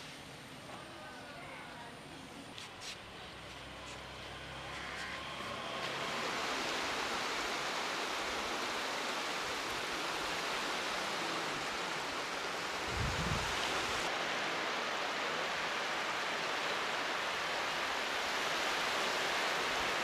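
Small sea waves washing onto a sandy beach: a steady rushing surf that comes in about six seconds in after a quieter start, with a brief low thump about thirteen seconds in.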